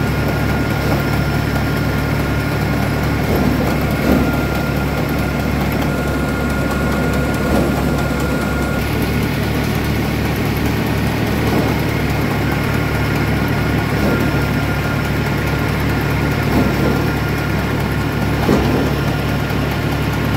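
A tractor engine driving a Dashmesh paddy thresher: a steady machine drone with a thin high whine held over it, swelling briefly every few seconds.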